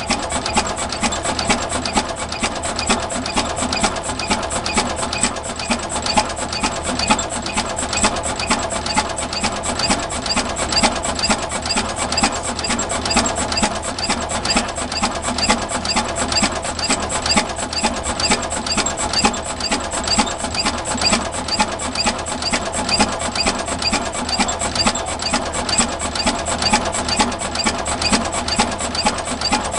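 Engine of a 1916 Avery 12-25 tractor running steadily, its exhaust beat and valve-gear clatter repeating at an even pace.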